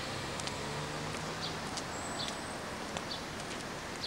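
Quiet outdoor ambience: faint short high chirps scattered every half second or so over a steady hiss, with a faint low hum that fades out before the halfway point.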